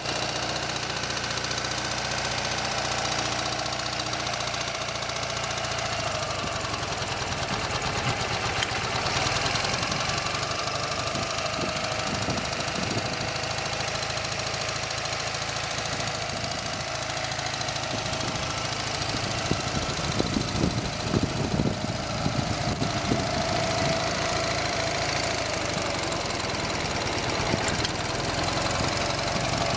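Ural M67-36 sidecar motorcycle's air-cooled flat-twin engine idling steadily, with a few louder knocks about two-thirds of the way through.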